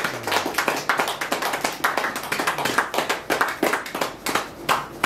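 Audience applauding: many quick, uneven claps that stop at the end.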